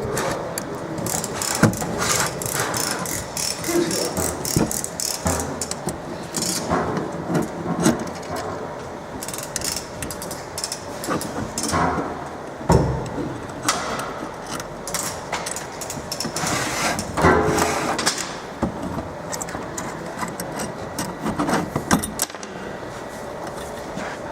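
Irregular clicks, knocks and metallic rattles of hand tools and small metal parts being handled, as in taking apart a laser marker's lens assembly.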